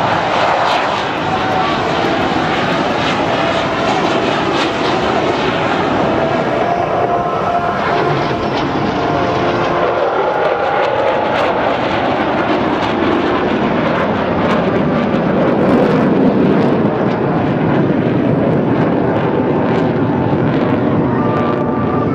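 Jet noise from a USAF Thunderbirds F-16C/D fighter climbing away: loud and continuous, with faint whining tones that slide slowly in pitch.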